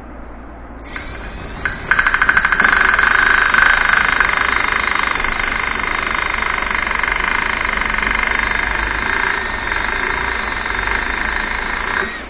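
Electric drill drilling out a hole. After a brief stuttering start about two seconds in, it runs steadily for about ten seconds and stops shortly before the end.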